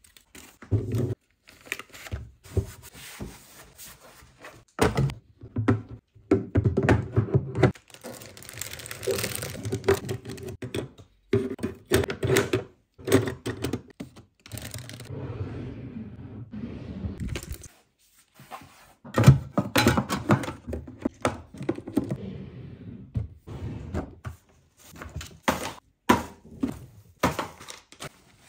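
Plastic bottles, tubes and spray cans of hair and skin products being set down and shuffled about in a drawer: a long run of irregular knocks and clatters, with a couple of short pauses.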